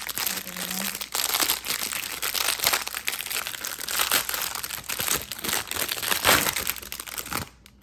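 Fidget toy packaging crinkling and crackling as it is handled and opened, stopping abruptly near the end.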